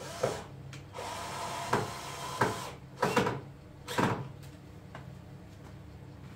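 An electric hand planer being handled into its wooden wall holder: a scraping slide of the tool against the wood, and about five clunks as it knocks and settles in place.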